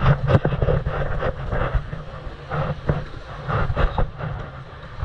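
Sea waves washing in and breaking against the rock face in irregular surges, over a heavy low rumble of wind on the microphone.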